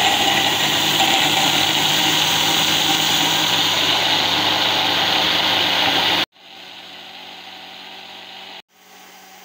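Electric food processor's chopper jar running, its motor whirring steadily and loudly as the blade grinds pieces of bread into fine crumbs. About six seconds in the sound drops sharply to a much quieter steady whir.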